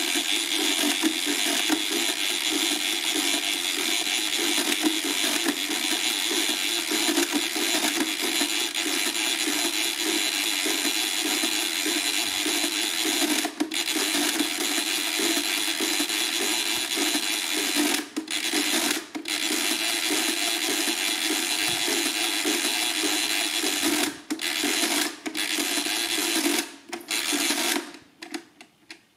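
Hamann Delta mechanical calculator cranked by hand through an automatic division, a continuous, very loud clatter from the crank's ratchet, which lets the crank turn without turning the electric motor. The clatter breaks off briefly a few times in the second half and dies away just before the end, when the division is done.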